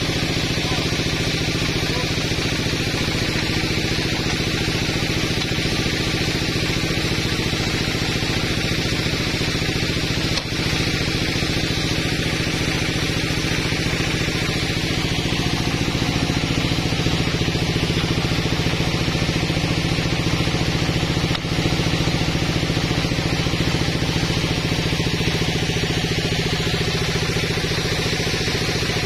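Sawmill log saw and its drive motor running steadily: an unchanging machine drone with a low hum and a hiss.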